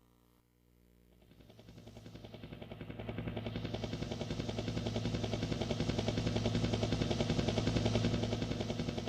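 Karaoke machine's built-in helicopter sound effect: a rapid, even rotor chop over a low hum, fading in and swelling steadily louder as if approaching.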